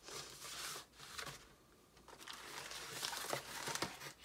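Plastic parts bag rustling and crinkling as it is handled, in two stretches with a short lull between them.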